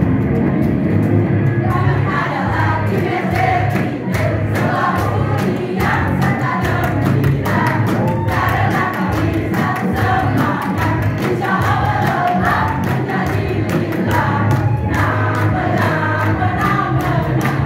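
A group singing a yel-yel team cheer song in unison, with music.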